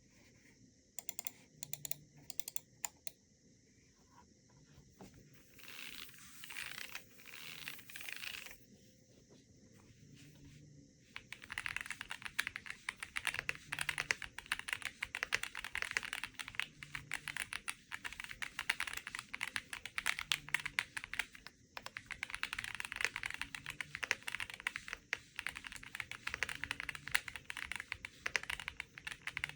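Chilkey Foxy65 mechanical keyboard with pre-lubed Sprout Green tactile switches being typed on: scattered single keystrokes and short runs at first, then continuous fast typing from about eleven seconds in.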